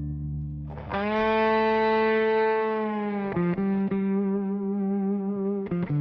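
Dark blues-rock instrumental: a distorted electric guitar sustains one long note for about two seconds, then plays a run of quick, shorter notes over a low backing chord.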